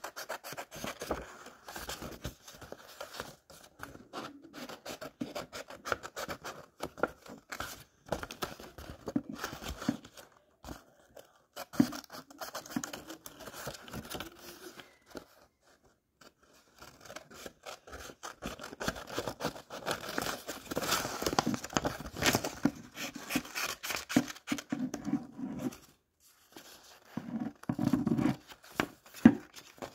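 Scissors snipping through a sheet of paper, cutting out a drawn hand, with the paper rustling and crinkling as it is turned. The snips come in quick runs, pausing briefly twice.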